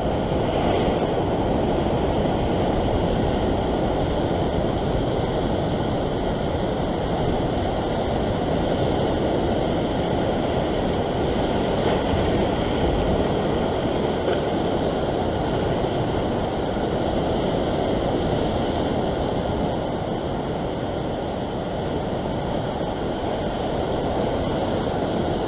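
Ocean surf breaking and washing over coastal rocks, a steady wash of noise without pauses.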